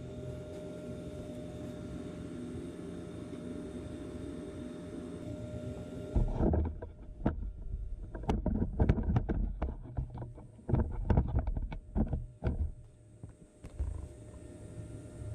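Steady hum with a faint fixed whine, then from about six seconds in a run of irregular knocks and clatters lasting about seven seconds, after which the hum carries on alone.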